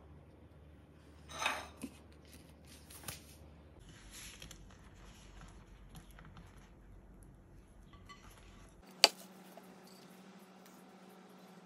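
Quiet handling of food and tableware: a short rustle and a few light clicks, then one sharp clink of a ceramic plate about nine seconds in.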